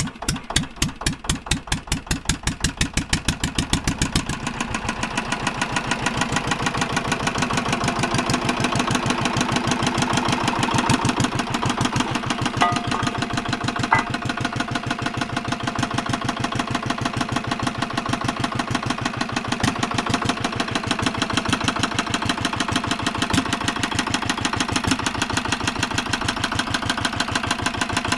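Petter single-cylinder diesel stationary engine just after a hand-crank start: its separate firing beats quicken over the first few seconds, then it settles into a steady, fast, even running beat.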